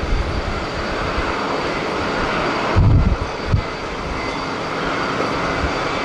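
Jet airliner engines running, a steady rushing noise. Gusts of strong wind buffet the microphone about three seconds in and again shortly after.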